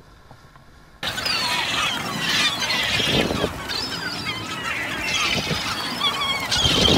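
A flock of gulls calling over one another, many overlapping short, high, wavering cries. The calling starts abruptly about a second in.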